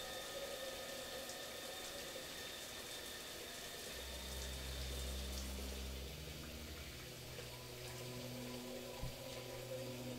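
Shower running: an even hiss of falling water under steady music tones. Deep, low music notes come in about four seconds in, and there is a single sharp tick near the end.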